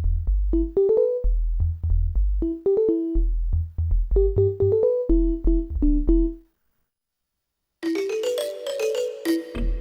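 Korg N364 synthesizer playing a factory preset: a phrase of short, plucked-sounding keyboard notes over a bass line, stopping about six and a half seconds in. After a second of silence a brighter, fuller sustained patch starts near the end.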